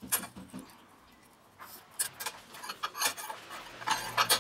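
Steel ruler and a steel knife blank being handled on a hard work surface: a string of light clicks and scrapes, loudest in a quick cluster near the end as the blade is moved.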